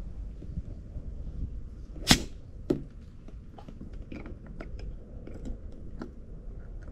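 A short, sharp burst of air about two seconds in and a smaller one just after, as the hand pump's hose is taken off the inflatable paddle board's valve, followed by light clicks and taps of the valve and hose being handled. Wind rumbles on the microphone.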